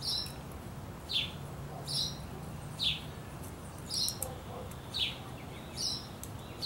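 A small bird chirping over and over, alternating a falling chirp with a shorter, higher note, roughly one call a second, over a faint low hum.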